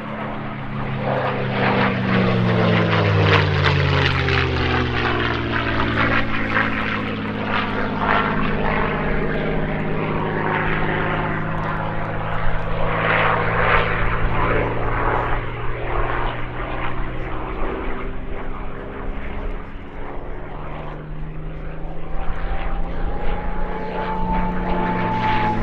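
P-51D Mustang's Merlin V-12 engine running at display power as the fighter passes, its note dropping over the first few seconds and then holding steady. Near the end a whistling tone swells and falls away: the "Mustang scream", air flowing over the gun ports.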